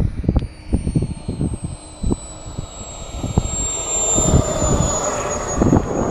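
Radio-controlled model jet flying, its high thin engine whine slowly falling in pitch. Wind buffets the microphone with gusty low rumbles.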